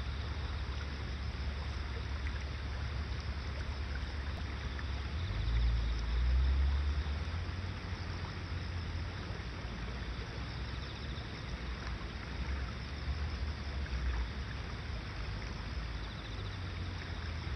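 Shallow river running over stones, a steady rush of water, under a low rumble that grows louder for a couple of seconds about five seconds in.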